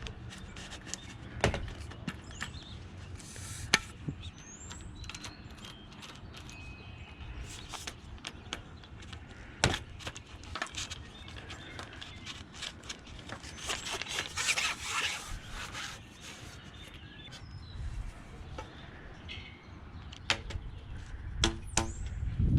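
Scattered sharp clicks and knocks from handling carbon-fibre water-fed pole sections and plastic clamps while fitting them. A stretch of denser scraping lasts about two seconds a little past the middle, like a clamp being slid along a pole section.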